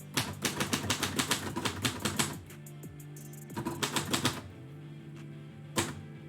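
Typewriter keys striking in a fast run of clacks, then a shorter run and one last single strike, over background music.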